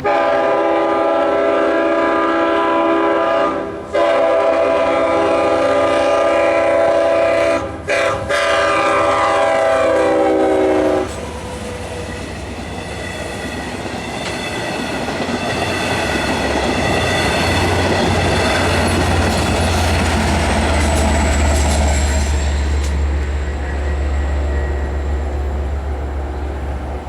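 EMD DM30AC diesel locomotive's air horn blown for about eleven seconds with two brief breaks, falling slightly in pitch near the end as it passes. Then the LIRR bi-level train rushes by, with a deep rumble building toward the end.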